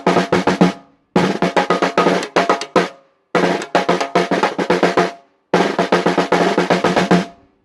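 1970s Drum Mate 14-inch chrome snare drum, fitted with a new Evans ST Dry batter head and Evans snare-side head, played in fast flurries of strokes. Four short bursts of rapid hits, each under two seconds, with brief pauses between them.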